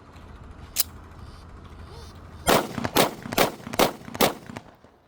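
TT-pattern 30 bore pistol (7.62×25mm Tokarev) fired about five times in quick succession, roughly two shots a second, each report followed by a short echo. A single sharp click comes about a second in.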